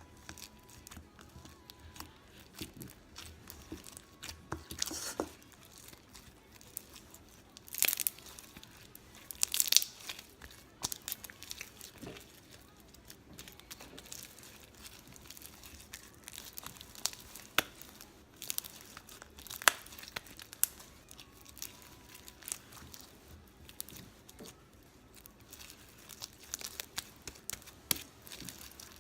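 Sticky slime with dry Orbeez beads mixed in being squeezed and kneaded by hand, giving irregular crunches and crackling pops as the hard beads are pressed, loudest in clusters about eight, ten and twenty seconds in.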